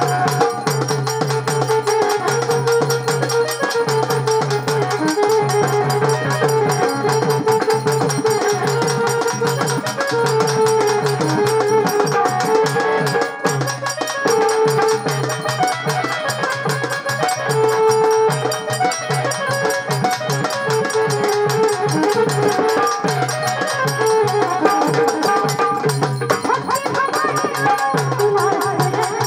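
Traditional Marathi folk music with continuous hand-drum percussion under a held drone and a sustained melody line.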